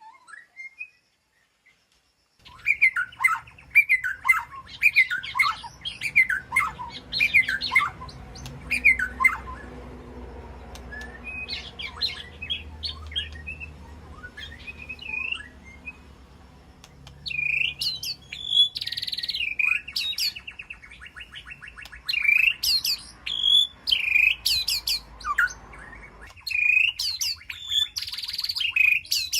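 White-rumped shama calling: a rapid string of short chirps and downward-sweeping whistles, mixed with a few harsh, rasping notes. It starts after about two seconds of silence.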